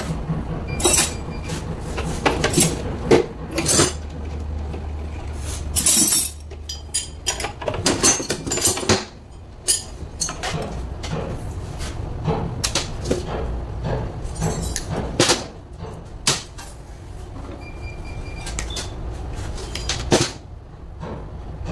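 Scattered clicks, clinks and knocks of hand tools and wiring being handled against a metal workbench and an AC blower unit's housing, over a low steady hum.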